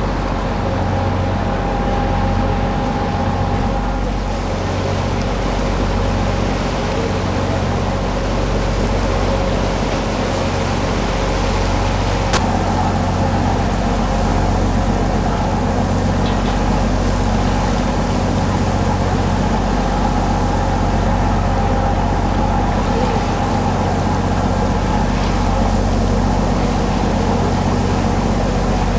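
Tour boat's engine running steadily with a low drone, over the hiss of water washing past the hull; a single sharp click about twelve seconds in.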